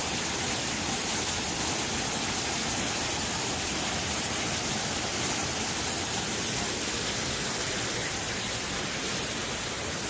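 Water fountain jet falling into a pool: a steady rushing splash with no breaks.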